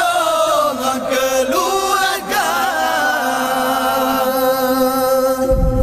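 Young men's voices chanting a melodic Acehnese sahur wake-up call into a microphone. The phrases are ornamented and wavering, then settle into one long held note from about two seconds in. A low bump comes just before the end.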